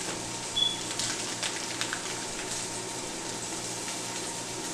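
Steady sizzling of steak and onions frying in a pan, with a few faint clicks.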